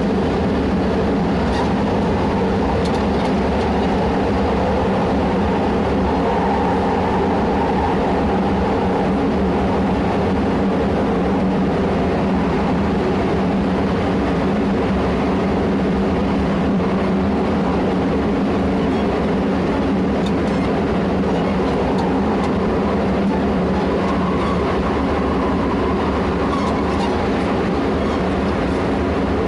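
JR West 207 series electric train running at speed, heard from on board: a steady rumble of wheels and traction motors with a constant hum of tones from the motor drive. This set is known for an abnormal inverter noise.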